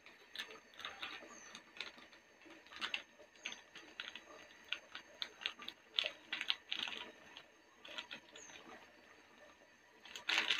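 Light, irregular clicks and scrapes of a utensil working at a metal cooking pot as korma masala goes into the beef curry, with a louder cluster of clicks near the end.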